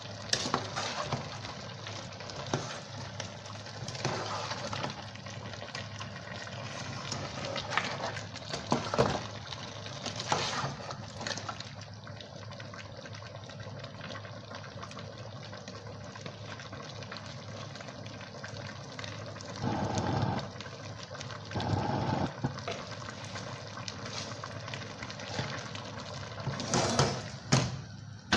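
Meat being stirred in a large aluminium pot on a gas stove: a spoon scrapes and knocks against the pot over a steady background hiss. Near the end the pot clanks sharply a couple of times as it is moved off the burner.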